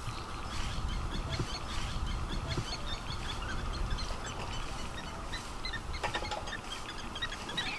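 Outdoor wildlife chorus: many short, high chirps and calls scattered throughout, over a steady high drone and a low rumble.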